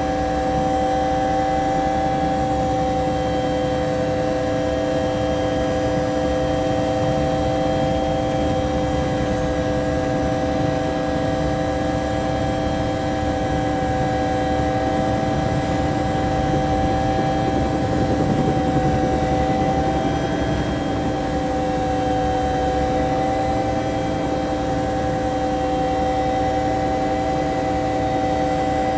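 Bell 212 helicopter heard from inside the cabin, its twin turboshaft engines and rotor running steadily: a high turbine whine over several steady lower tones and a dense rumble.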